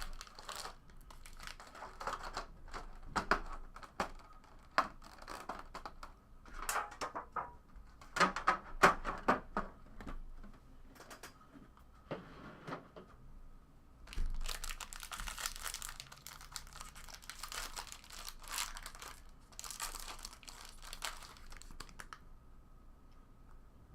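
Trading card packaging being handled and opened: wrappers crinkling and tearing, with scattered clicks and taps as cards are handled, and a longer stretch of steady crinkling and rustling in the second half.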